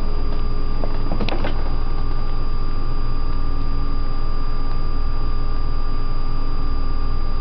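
A steady mechanical hum with a few fixed tones over a low rumble, and a short cluster of clicks about a second and a half in.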